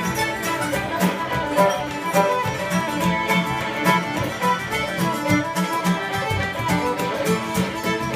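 Instrumental music played on string instruments, with a steady beat.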